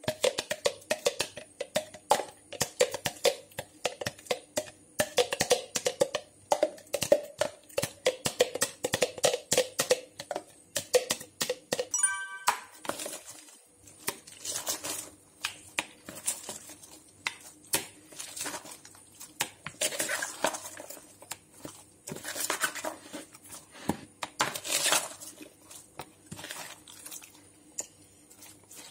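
Chopped cabbage salad being tossed in mayonnaise dressing with plastic spatulas: repeated wet squelching and crunching with light knocks against the bowl. Background music plays underneath.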